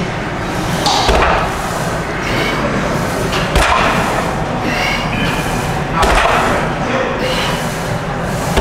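Loaded barbell set down on a power rack's pins between rack-pull reps: a heavy thud about every two and a half seconds, over a steady background din.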